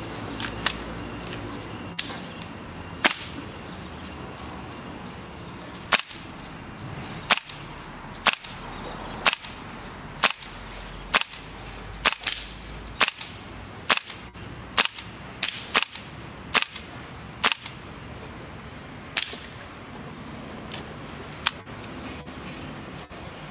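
WE-Tech AK gas-blowback airsoft rifle on green gas firing single shots, each a sharp crack of the gas blast and bolt cycling. About seventeen shots come roughly one a second, with a pause after the third and fewer toward the end.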